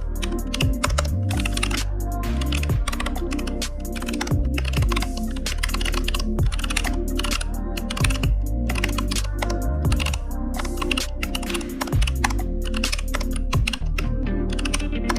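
Computer keyboard typing in quick, irregular keystrokes over background music with a steady beat and bass.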